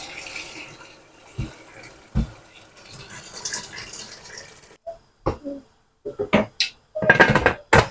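Water pouring steadily from an electric kettle into an aluminium pressure cooker of chicken, stopping after about five seconds. Near the end come several sharp metal knocks and clatters from handling the pot.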